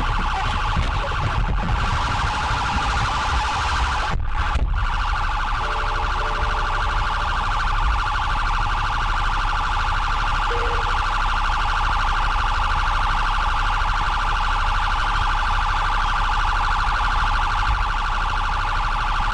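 Police car siren sounding in a fast, steady warble, with low road and engine rumble underneath as the car slows to a stop.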